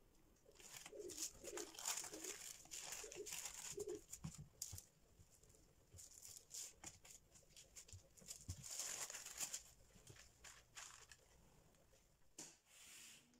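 Plastic cling film crinkling and rustling in several faint bursts as gloved hands gather dough scraps on it and fold it over them.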